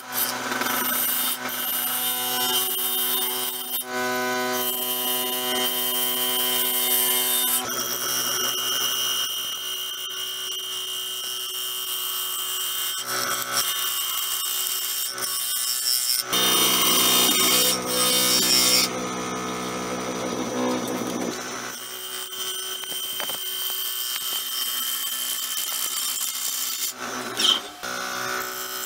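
Nova Galaxi DVR wood lathe running with a steady motor whine while a bowl gouge cuts the inside of a spinning cedar-and-epoxy-resin bowl, a rough scraping hiss of shavings coming and going with each pass. The cutting is loudest for a couple of seconds a little past halfway.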